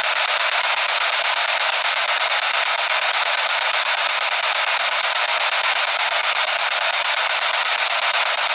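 P-SB7 spirit box radio sweeping through stations, giving a steady hiss of static that flutters rapidly in loudness.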